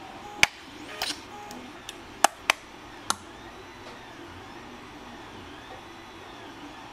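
Sharp plastic clicks from handling a hobby RC transmitter and flicking its switches, six in the first three seconds, then a steady low background with faint wavering tones.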